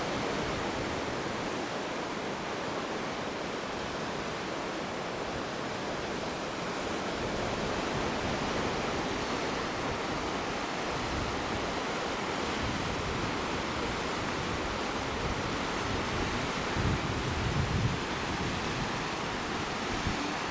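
Ocean surf breaking and washing over rocks below the bluff, a steady rushing hiss. Wind buffets the microphone with a few low rumbles late on.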